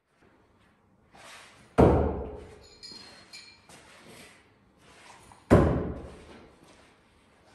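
Two throwing knives striking a wooden target, each a sharp, loud thud that dies away with echo in the hall, about four seconds apart. A brief, faint metallic ring comes about three seconds in.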